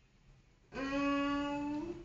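A woman's voice holding one steady note, like a drawn-out hum or hesitation sound, for just over a second, rising slightly at the end, after a short quiet start.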